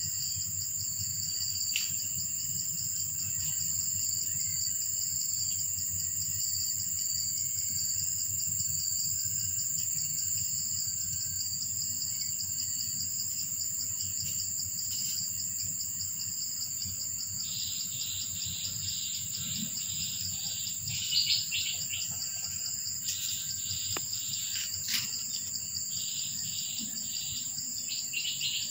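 Steady high-pitched chorus of insects shrilling. A little past halfway, a second insect call joins it, pulsing in a regular rhythm of a few beats a second.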